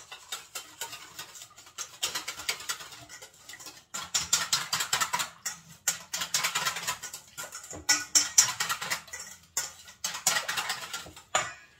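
Small wire whisk beating a batter of egg and milk in a stainless steel bowl: fast, continuous clicking and rattling of metal on metal, with a few brief pauses.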